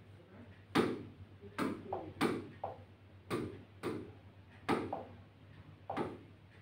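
About seven short, sharp taps at irregular intervals, roughly one a second: a fingertip tapping the glass of an interactive touchscreen display.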